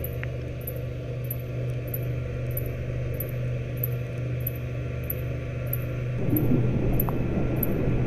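Steady low hum of shipboard machinery, with faint high ticks about twice a second throughout; the hum changes character about six seconds in.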